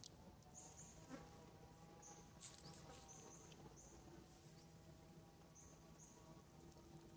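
Near silence: a faint steady hum with short high chirps, mostly in pairs, every second or two, and a few soft clicks.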